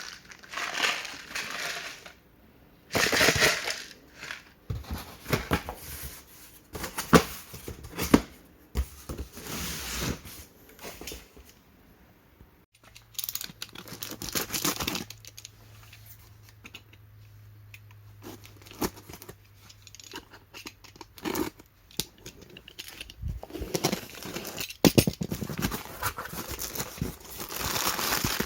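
Plastic packaging of instant noodles being handled and torn open, with irregular crinkling, ripping and a few sharp snaps. A faint low hum runs through the middle stretch.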